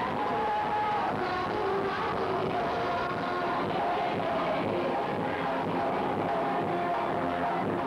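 Live amplified music: a woman singing a melody into a microphone with a group of women, over a dense, steady accompaniment.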